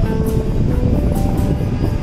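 Background music, a melody of held notes, over a loud, steady low rumble of background noise.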